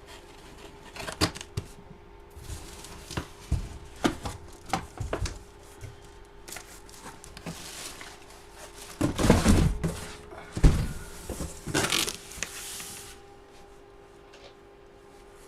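Handling noises: a series of sharp clicks and knocks, then louder rustling and crinkling about nine and twelve seconds in, over a faint steady hum.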